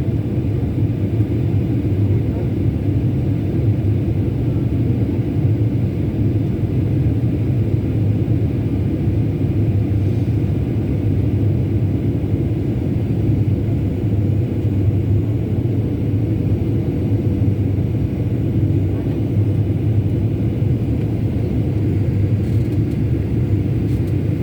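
Steady, unbroken low rumble of an aircraft cabin in flight.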